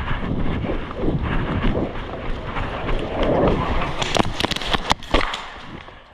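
Wind buffeting the microphone along with rustling movement, and a quick cluster of sharp clicks or snaps about four to five seconds in.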